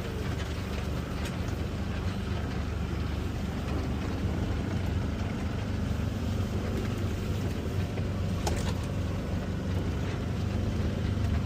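A vehicle's engine running steadily while driving, with road and wind noise, as heard riding in it.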